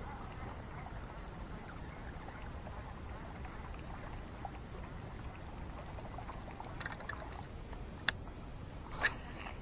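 Steady outdoor background hiss, with a sharp click about eight seconds in and another just after nine seconds.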